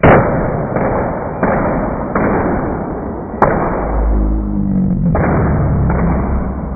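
Electrolytic capacitors exploding one after another: a loud bang, then about six more bangs roughly every second, with dense crackling and hissing between them as they burst and burn.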